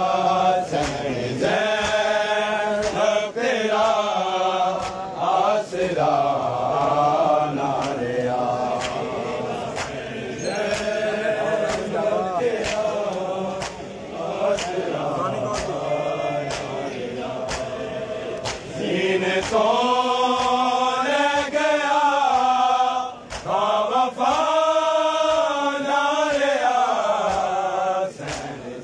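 Crowd of men chanting a noha (Shia lament) together, with a steady beat of open-hand slaps on the chest (matam) keeping time.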